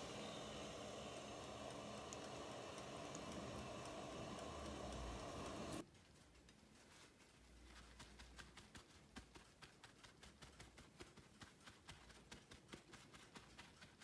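A steady rushing noise with a low hum from the stovetop and pot of boiling water, cut off suddenly about six seconds in. Then faint quick taps, several a second, as a folded paper towel dabs cooked white asparagus dry on a paper-lined plate.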